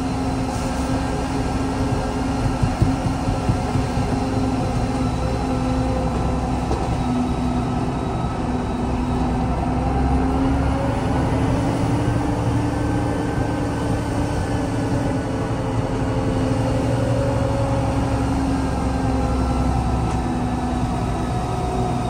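Diesel engine of a Peterbilt concrete mixer truck running at a steady, even pitch while the truck drives along, with a low rumble underneath.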